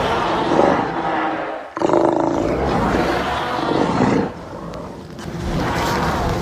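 Made-up monster's roars, a sound effect assembled from an allosaurus roar and walrus and sea lion calls: two long, loud roars with a short break about two seconds in, then a quieter stretch that swells again near the end.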